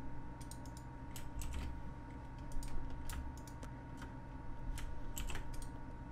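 Computer keyboard keys and mouse buttons clicking in irregular, scattered taps as Blender shortcuts like Ctrl+R and Shift+E are entered, over a faint steady electrical hum.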